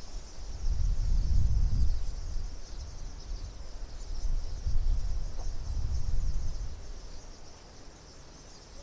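Gusts of wind buffeting the microphone, strongest about a second in and again around the middle, easing off near the end, over a steady high-pitched chirring chorus.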